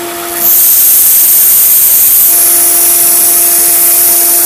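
Machete blade ground against the running Grizzly 1x30 belt sander's new 120-grit belt. A loud, high grinding hiss starts suddenly about half a second in and holds steady over the machine's steady motor hum.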